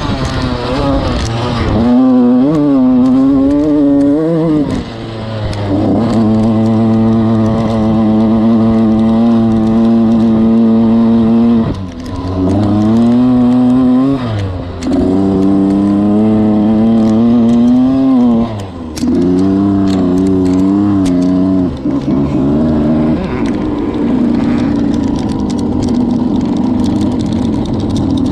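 Four-stroke dirt bike engine on board, revving up and pulling, then dropping sharply several times as the throttle is rolled off or it shifts. It holds one long steady run at high revs, and over the last few seconds it settles to a lower, even running as the bike slows.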